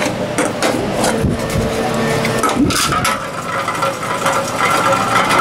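Tomra reverse vending machine running as containers are fed in: a steady motor hum with irregular knocks and rattles.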